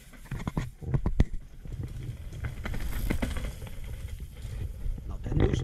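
Mountain bike rattling and knocking over rough trail as a rider passes, a cluster of sharp knocks in the first second and a half and lighter clicks after, over a steady low rumble.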